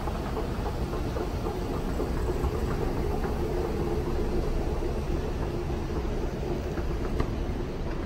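Escalator running, a steady low mechanical rumble with a faint hum.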